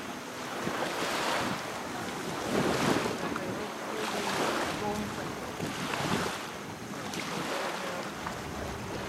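Small waves washing up the shoreline in repeated surges that swell and fade, mixed with wind buffeting the microphone.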